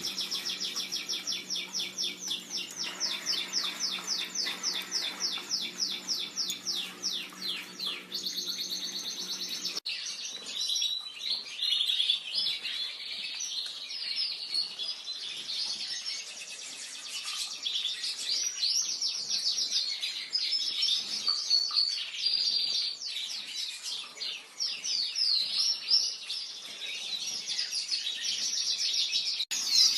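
Pet birds chirping: a fast, even run of repeated chirps over a low steady hum for the first ten seconds, then, after an abrupt change, a busier mix of varied twittering calls.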